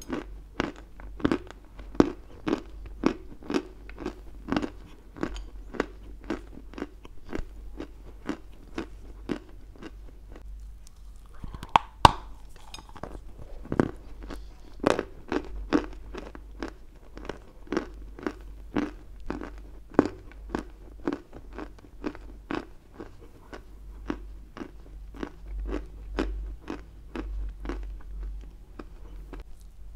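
Close-miked chewing of White Turkestan edible chalk: a steady run of crisp crunches, about two a second, right at a lavalier microphone held to the mouth.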